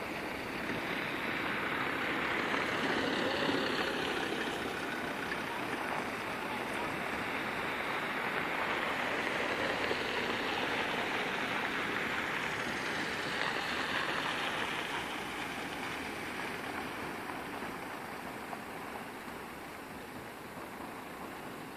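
Cars driving past on a dirt track: a rushing mix of tyre and engine noise that swells over the first few seconds and fades slowly toward the end.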